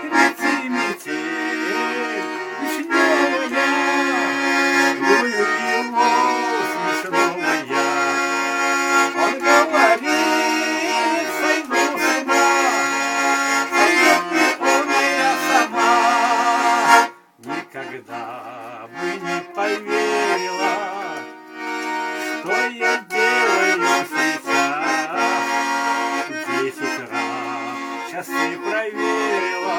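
Accordion playing an instrumental passage of a folk-style song in full chords, breaking off briefly about seventeen seconds in before carrying on.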